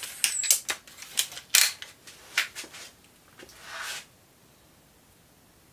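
Gamo Swarm air rifle being worked during trigger test-firing: an uneven run of sharp mechanical clicks and knocks, the loudest about a second and a half in, stopping about four seconds in.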